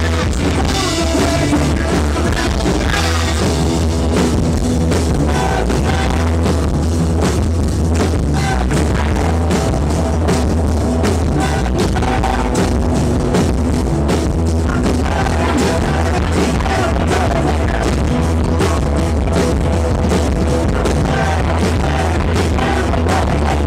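Live rock band playing loudly and steadily, with a busy drum kit over bass and guitars, heard through a small camera's microphone.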